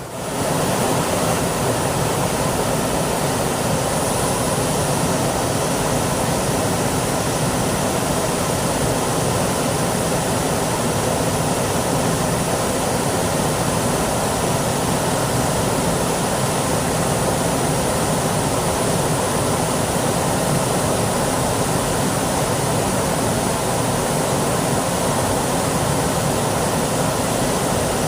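Flowing water rushing steadily, an even unbroken noise.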